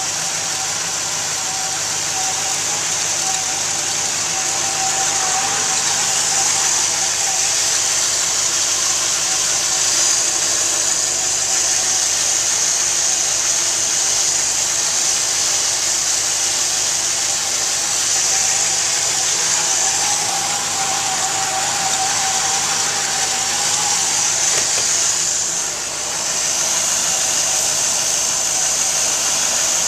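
1955 Buick Century's 322 cubic-inch Nailhead V8 idling steadily, with a constant hiss over the engine note.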